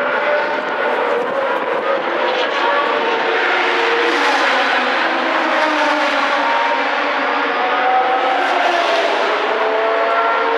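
Racing car engines at speed, several running at once, their pitches gliding up and down as they rev.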